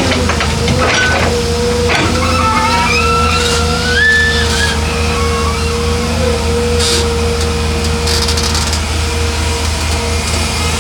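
Heavy diesel earth-moving machinery running steadily. A higher whine steps up in pitch for a few seconds in the middle, and there are a few clicks and knocks near the start and later on.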